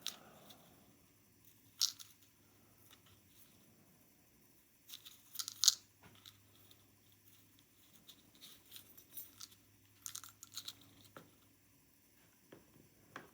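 Scattered small clicks and scrapes from a shim and tools being worked into a pin-and-pin dimple lock cylinder to free the plug. The loudest cluster comes about five seconds in.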